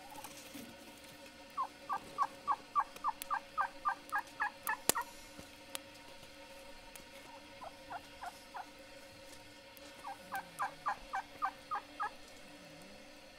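A bird calling in runs of short, quick, slightly falling notes, about four a second: a long run, a brief one, then another long run. There is a single sharp click partway through.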